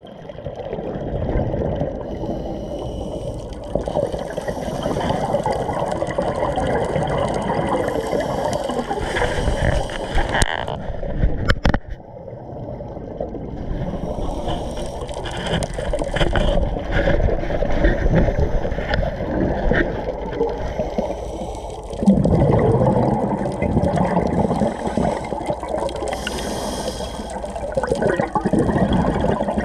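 Scuba diving heard underwater: the regulator's breathing and exhaled bubbles gurgling, surging and easing. There is a short lull a little before halfway and a louder surge of bubbles about two-thirds of the way through.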